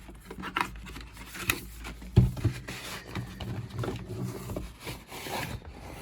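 A plastic tool case and its packaging being handled: rubbing and scraping with scattered clicks, and one sharp knock about two seconds in.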